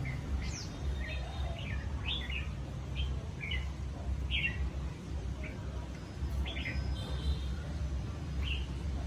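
Small birds chirping: short, sharp calls repeated every half second or so, over a steady low rumble.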